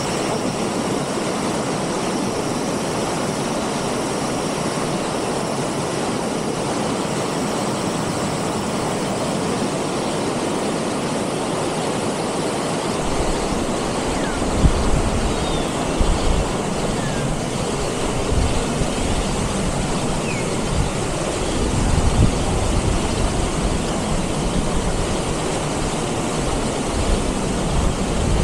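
Mountain stream rushing over boulders in cascades, a steady whitewater noise. From about halfway in, low rumbles and a few thumps join it.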